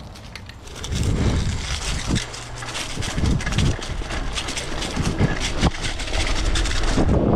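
Mountain bike ridden fast down a dirt trail strewn with dry leaves, heard from a camera riding along: wind rushing over the microphone, tyres rolling on dirt and leaves, and the bike rattling, with several sharp knocks over bumps. It starts about a second in.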